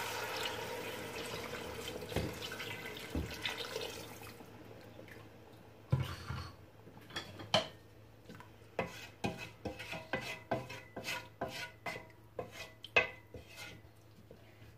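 Hot water pouring into a stainless steel pot of chicken pieces, tapering off over the first few seconds. Then a wooden spoon stirring the broth, knocking against the pot's metal side in a run of irregular taps, about two a second.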